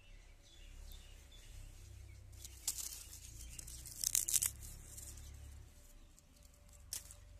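Lumps of freshly made wood charcoal clinking and crunching as they are picked out of a cooled earth-covered pile by hand. There are a few sharp crackles, the loudest cluster about four seconds in, over a low steady rumble.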